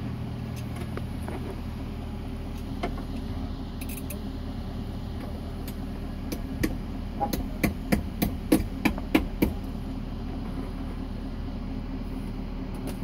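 Toyota 1RZ four-cylinder petrol engine running at a steady idle with its timing chain and valve gear uncovered. About a third of the way in, a quick run of about ten sharp knocks sounds over roughly three seconds.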